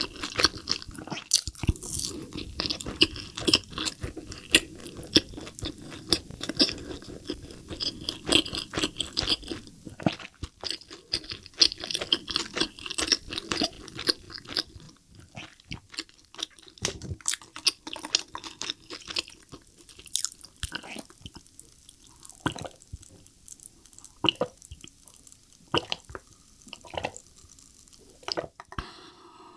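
Close-miked chewing and crunching of crispy fried chicken coated in sticky spicy sauce. The crackly crunches come thick and fast through the first half, then thin out into slower, sparser chewing.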